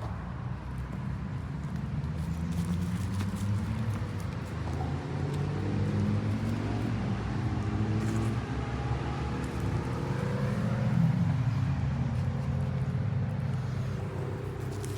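A motor vehicle's engine running close by, its pitch shifting up and down as it changes speed, loudest about eleven seconds in.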